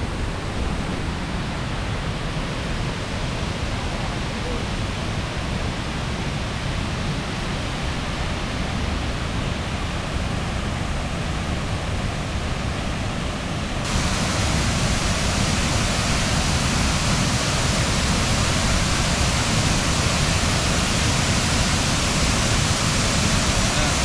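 A waterfall's steady rushing roar of falling water, loud. About halfway through it jumps louder and hissier, heard from closer to the falls.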